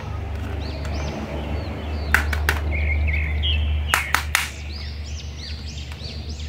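Sharp plastic clicks and knocks from a Hulk action figure being handled and turned, a few around two seconds in and again around four seconds. Behind them run a steady low hum and repeated short high chirps.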